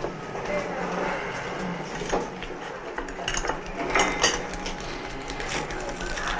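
Background clatter: scattered light clinks and knocks over a steady low hum, the loudest pair about four seconds in.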